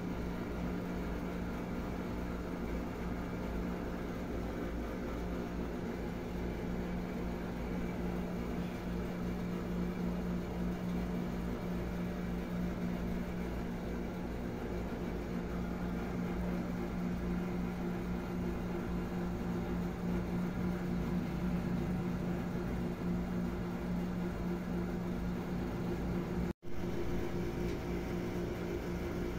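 Steady low mechanical hum with a constant tone, unchanging throughout, that cuts out for an instant near the end.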